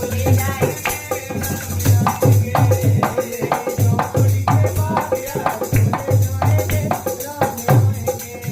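Background music with a steady beat, bass thumps about twice a second and shaker-like percussion.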